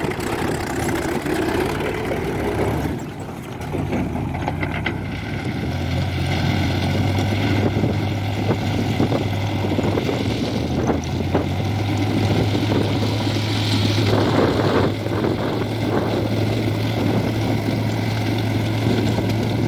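Heavy diesel engine running steadily, with a brief dip about three seconds in before settling into a steady drone.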